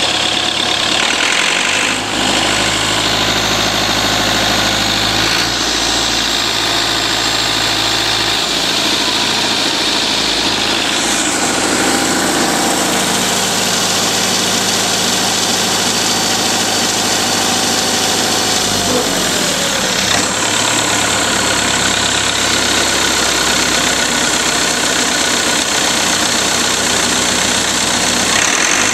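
Perkins 1004-40T four-cylinder turbocharged diesel engine running steadily on a test stand, exhausting through an upright muffler. Its pitch drops once, about two-thirds of the way through, as the engine speed comes down.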